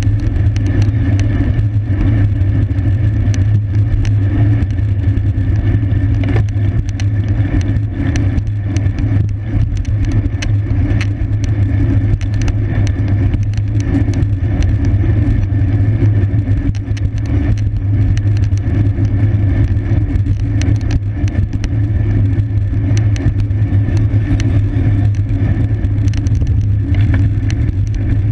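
Wind and road noise of a road bicycle at racing speed: a steady low rumble with frequent small clicks and rattles.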